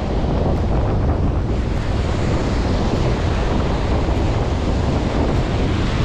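Wind buffeting the microphone with a constant low rumble, over a steady wash of surf on the shore.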